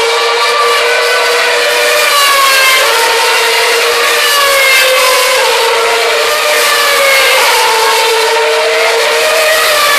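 Formula One cars' 2.4-litre V8 engines running at high revs on the circuit, several at once, their overlapping notes rising and falling in pitch as they accelerate, shift and brake.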